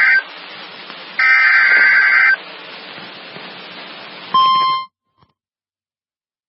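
EAS SAME header data bursts on NOAA Weather Radio: raspy, buzzing digital bursts about a second long. One ends just after the start and another runs about a second later, over radio hiss. Near the end the 1050 Hz warning alarm tone starts and cuts off after about half a second, followed by silence.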